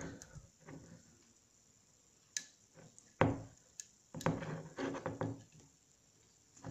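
Flat-blade screwdriver prying at the tight metal rim of a Karizma ZMR fuel pump housing: a few sharp clicks and scrapes of steel on metal, the loudest about three seconds in, with a short run of scraping about a second later.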